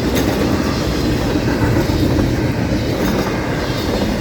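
Florida East Coast Railway freight cars rolling past close by: a loud, steady rumble of steel wheels on the rails, with faint clicks from the wheels crossing rail joints.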